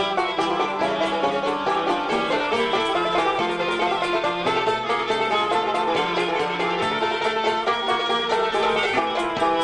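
Algerian chaabi ensemble playing an instrumental interlude between sung verses, a quick plucked-string melody running throughout.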